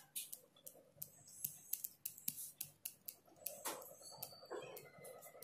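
Ballpoint pen writing on lined paper: faint, irregular scratches and ticks as the words are written.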